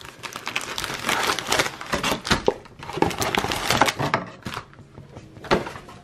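Plastic cellophane wrapping on a trading-card pack crinkling as it is handled and torn open: a dense crackle for about four seconds, then quieter rustling with one sharp click near the end.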